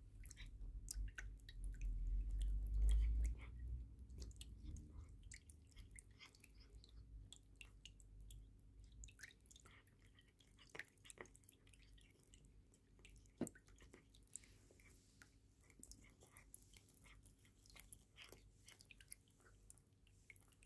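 Calico cat chewing roast chicken from a bowl: a long run of small irregular wet clicks and smacks. A low rumble sits under the first few seconds.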